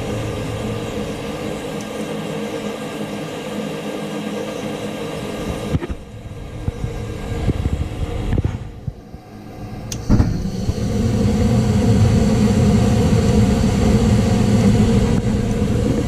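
Gas furnace lighting: the furnace's motor hums steadily while the hot surface igniter heats. About ten seconds in there is a sharp click, and the burners light with a steady low rumble that is louder than the hum before it.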